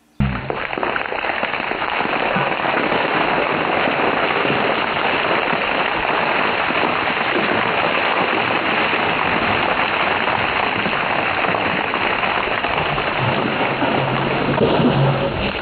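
Water pouring down steadily in several streams over a man and splashing onto the ground, starting suddenly and keeping up an even, heavy splashing like rain.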